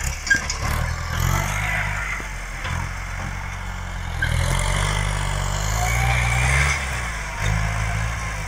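Farm tractor's diesel engine running under load as it pulls a disc harrow over rough ground, its note rising and falling several times as the revs change.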